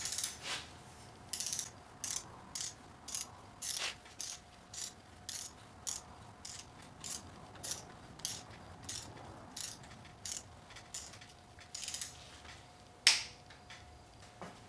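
Torque wrench ratchet clicking in short back-and-forth strokes, about two clicks a second, as it runs down a lower intake manifold bolt on a supercharged GM 3800 engine set to 16 N·m. One louder, sharper click comes near the end.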